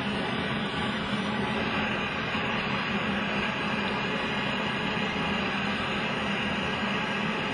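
Jeweller's gas torch burning with a steady hiss.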